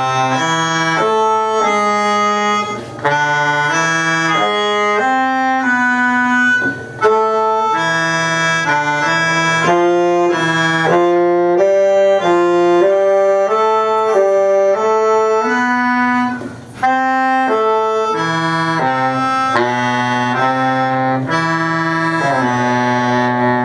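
Live band music led by a reedy, accordion-like hand-held wind instrument playing a melody in held notes, with brief pauses between phrases.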